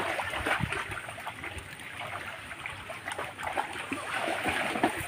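Wet, irregular pattering and crackling of a heap of small wet fish in a mesh net as a hand sorts through them.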